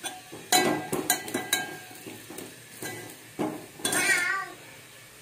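Steel spoon stirring in a steel cooking pot, scraping and clinking against the metal in a run of irregular strokes. The clinks come thickest in the first second or two and again about four seconds in.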